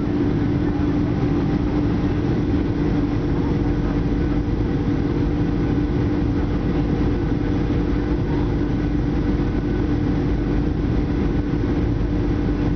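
Steady cabin noise of a Boeing 737-800 on its landing approach, heard inside the cabin beside the wing: the CFM56-7B jet engines' even drone and rushing air, with a steady hum tone running through it.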